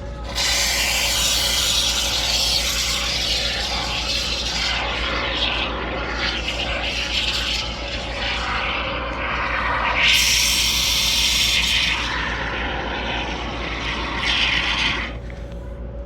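Can of Great Stuff expanding spray foam hissing as it is sprayed out in a long, steady spray. It is strongest about ten seconds in and stops shortly before the end.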